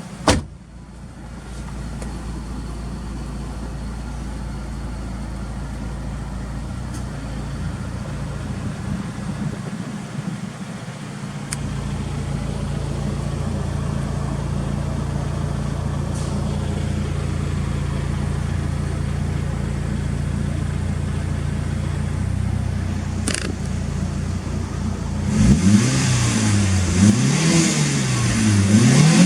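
Mitsubishi Lancer Evolution VI GSR's turbocharged 4G63 inline-four idling steadily through an aftermarket exhaust, then revved several times near the end, the engine speed rising and falling with each blip. A short loud knock sounds right at the start.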